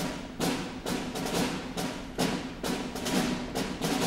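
Solemn march music: a drum beats steadily, about two and a half strikes a second, over sustained low chords.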